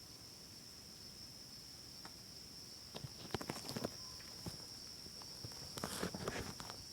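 Steady high-pitched chirring of crickets or similar insects, with two clusters of faint, irregular clicks and crackles about three seconds and about six seconds in.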